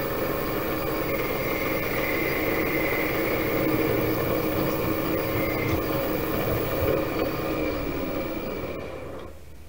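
Metal lathe running steadily with a cue shaft spinning in its three-jaw chuck, then winding down and going quiet near the end as it is switched off.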